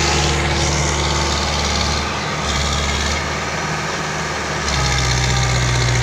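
Powertrac Euro 60 tractor's diesel engine running steadily. Its level dips slightly about two seconds in and picks up again near the end, with a stronger low hum.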